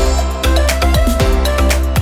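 Electronic background music with a steady beat of regular kick-drum hits, a deep bass line and sustained synth notes.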